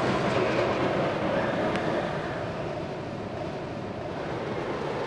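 Noisy rushing rumble like a rollercoaster or train running on rails, with no tune over it. It eases off in the middle and builds again near the end.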